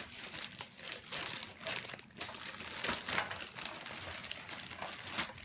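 Packing paper crumpling and crinkling as it is pulled and handled out of a box, an irregular run of rustles and crackles.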